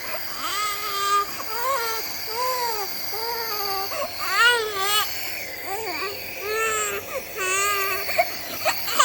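A young child crying: a continuous run of short wailing cries, each rising and falling in pitch, one after another.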